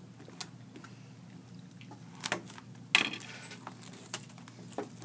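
Handling noises from sealed trading-card boxes being picked up and moved: a few scattered sharp clicks and knocks, the loudest about three seconds in.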